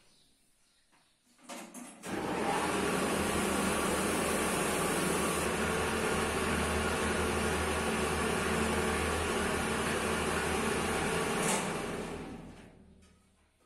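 Motor-driven nixtamal corn mill (molino) running and grinding boiled corn into masa, a steady machine drone with grinding noise. It starts about two seconds in, is switched off near the end and winds down over about a second.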